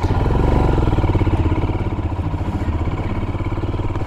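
Royal Enfield Himalayan's single-cylinder engine running steadily at low revs, a rapid even pulse of firing strokes.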